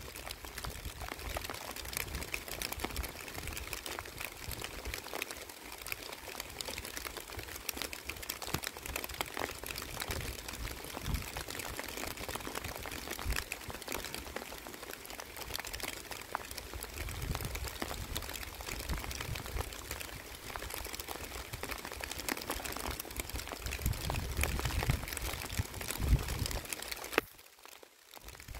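Steady rain falling on open water and wet waterside grass: a dense hiss of many small drop ticks. It cuts out almost to silence for about a second near the end.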